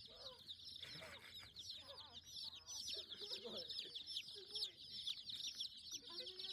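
Chickens: a dense, continuous chorus of many high peeping calls, with lower clucks mixed in now and then.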